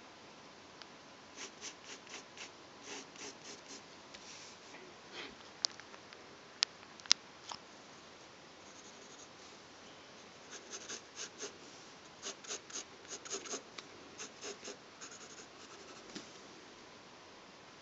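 Pencil scratching across drawing paper in quick short strokes, coming in two busy spells, with three sharp ticks of the pencil against the paper a little before the middle.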